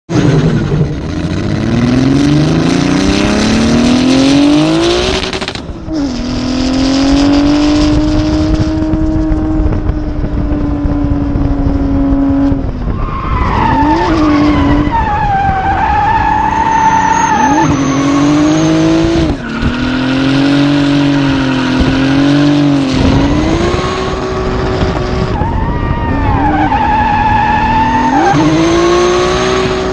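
Nissan RB26DET twin-turbo straight-six in an S13 revving hard, climbing in pitch for the first few seconds, dipping briefly, then held at high revs. From about halfway on, tyres squeal through drifts over the engine, with the revs rising and falling.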